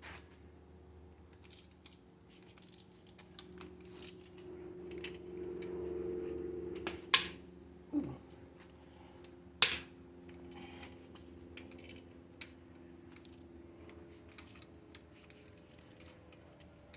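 Hand tools working bolts on an engine: scattered light clicks and taps, with two sharp metallic clinks a few seconds apart around the middle and a dull knock between them, over a faint steady hum.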